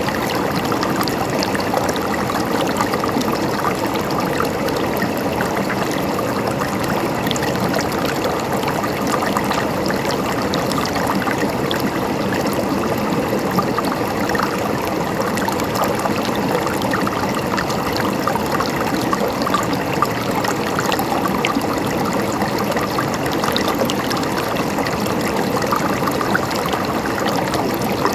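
Mountain stream flowing steadily, a continuous gurgling with small trickling splashes.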